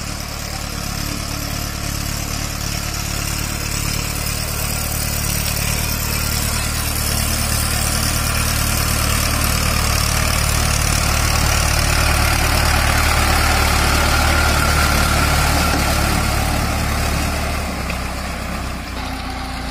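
Diesel farm tractor engine running steadily while working through mud. It grows louder toward the middle and eases off near the end.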